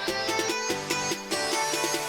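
Background music: a melody of quick plucked string notes over sustained tones.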